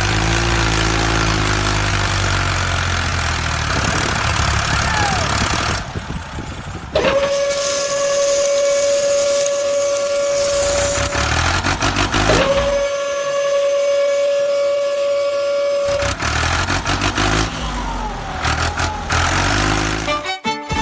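A vehicle engine running, broken in the middle by two long, steady, horn-like tones of several seconds each, after which the engine sound returns.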